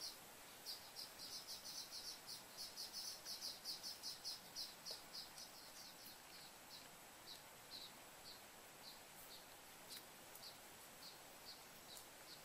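A bird calling in a run of short, high chirps, about five a second at first, then slowing to about two a second after four seconds or so, over a faint background hiss.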